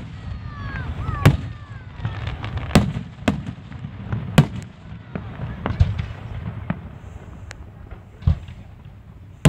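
Aerial fireworks shells bursting: about eight sharp bangs at irregular spacing, over a continuous low rumble.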